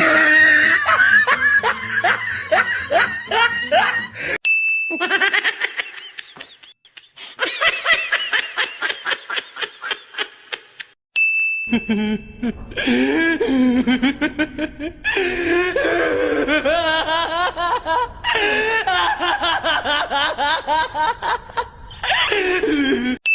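A string of different recorded laughs played one after another: loud, pulsing laughter, each clip breaking off into a short high beep before the next one starts.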